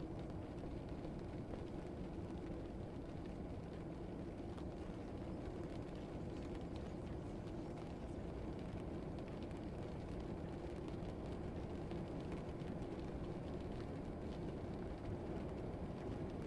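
Looped background ambience: a steady low rumble with a faint even hum and scattered soft ticks, with no voices or music standing out.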